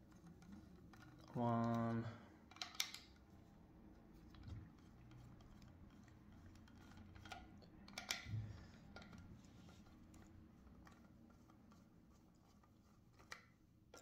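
Screwdriver with a socket bit undoing the small front-panel screws of a miner's case: scattered light metallic clicks and taps, with sharper clicks about three and eight seconds in. A man's voice gives a short hum about a second and a half in.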